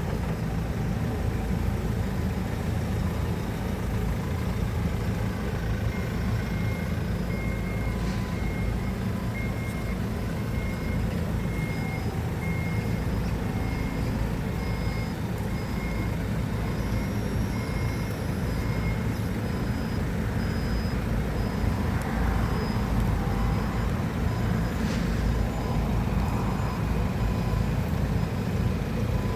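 Heavy construction machine's engine running steadily, with a reversing or travel alarm beeping in a regular series through the middle.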